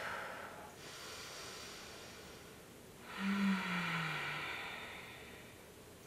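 A woman breathing slowly and deeply: a soft inhale, then about three seconds in a louder exhale with a brief low hum that falls in pitch, fading away.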